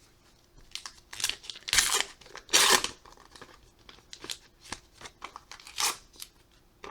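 Baseball card pack wrapper being torn open and crinkled in a few short rips, the loudest about two and a half seconds in.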